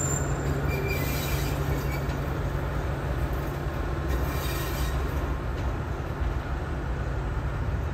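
Diesel locomotive running, its engine a steady low drone as it moves on the track. A thin, high wheel squeal at the start stops within the first second.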